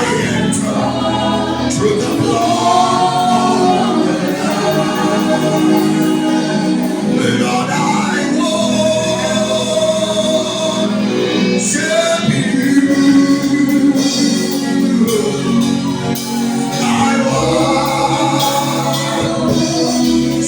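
Gospel worship music: a slow worship song sung over sustained instrumental chords.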